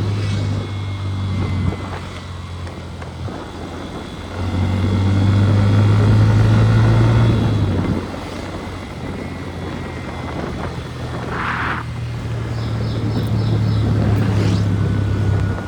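Motorcycle engine running with a steady low hum. It grows louder for a few seconds about four seconds in, drops back, then builds again near the end.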